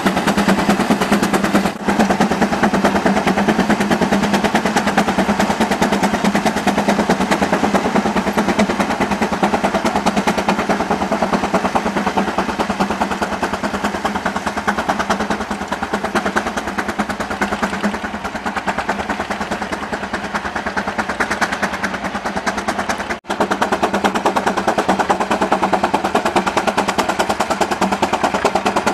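Steam traction engines under heavy load pulling plows: a rapid, steady exhaust chuff from the stack, with the sound dropping out briefly twice.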